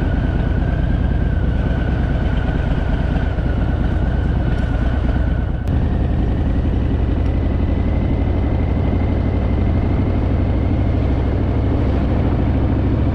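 Harley-Davidson V-twin motorcycle engine running steadily while riding, with a thin whine above it and a brief dip in level about six seconds in.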